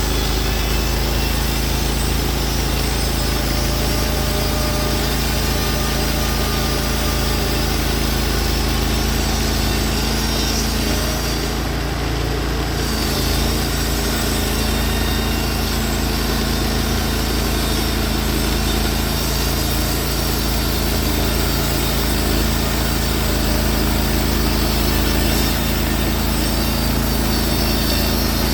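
A Norwood HD36v2 portable bandsaw mill's engine running steadily at a constant speed, with only a slight dip in level about twelve seconds in.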